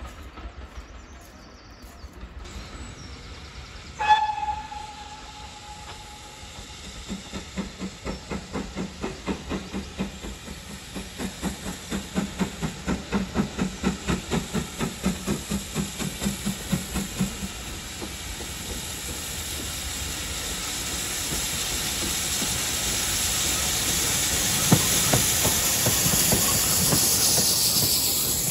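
GWR steam locomotive's whistle sounds once, briefly, about four seconds in. Then come the locomotive's exhaust beats, chuffing evenly at about three a second as it approaches under power. Those give way to a growing hiss of steam and the rumble of the engine and its coaches passing close.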